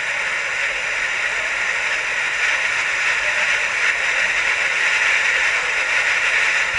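Fast-flowing floodwater churning around an obstacle, a steady rushing of water.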